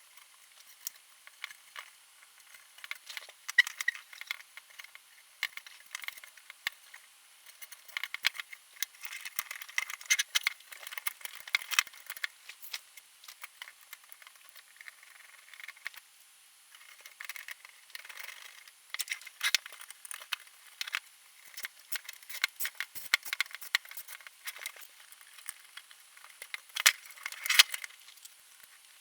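Irregular small metallic clicks, clinks and rattles of the Aim TTi EX355R bench power supply being put back together by hand: screws and metal case parts being handled and fitted. A cluster of louder clacks comes near the end.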